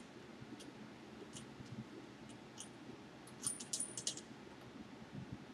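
Faint, light metallic clicks and clinks of a nut and washer being tightened onto the base of a sewing machine's work light, with a quick cluster of several clicks about three and a half seconds in.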